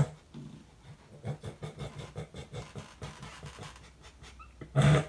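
A pet panting in quick, even breaths, with one brief louder sound shortly before the end.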